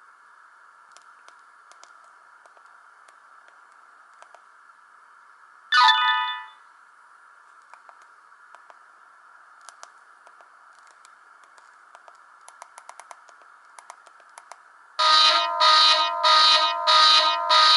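Samsung GT-E1050 mobile phone ringtones played through its small speaker over a steady hiss: a short ringtone snippet about six seconds in that cuts off after under a second, faint clicks, then from about fifteen seconds a loud ringtone of quick repeated beeping chords, roughly one pulse every half second.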